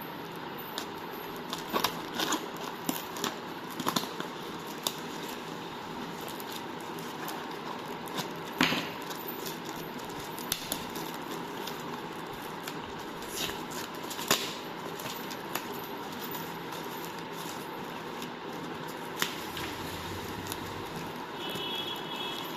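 Scattered sharp clicks and crackles of a parcel being handled and unpacked, over a steady background hiss.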